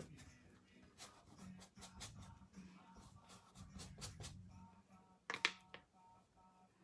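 Quiet dabs and strokes of a paintbrush on canvas, a run of short clicks with one louder scrub a little after five seconds in. Faint music plays underneath.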